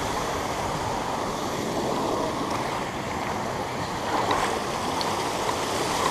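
Steady rush of a creek waterfall, an even roar of falling water.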